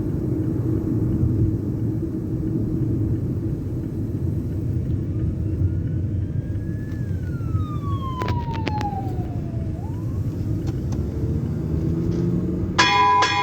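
A steady low rumble throughout, with a single tone that rises and then falls in pitch a little after the middle, a few sharp clicks, and a short buzzy beep near the end.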